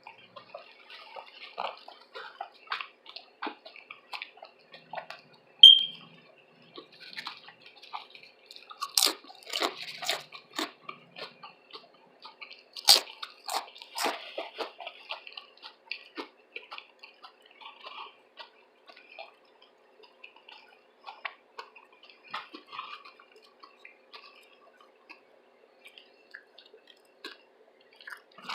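Close-miked wet chewing and mouth sounds of someone eating a loaded veggie tuna sub: irregular lip smacks, squelches and small clicks, with a few louder sharp crackles among them.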